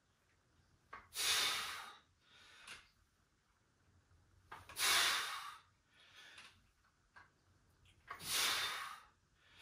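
A man breathing hard through repetitions of dumbbell pullovers. Three loud exhales come about three and a half seconds apart, one with each lift, and shorter, softer inhales fall between them.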